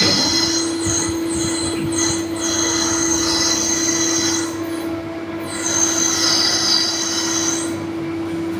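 Metal lathe running with a steady hum while the cutting tool squeals in a high, wavering screech against the turning work.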